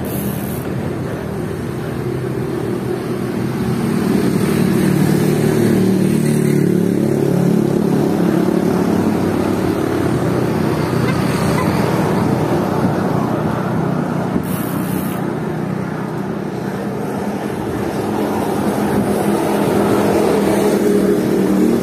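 Motor vehicles passing on the road with engines running, swelling in level about four to seven seconds in and again near the end.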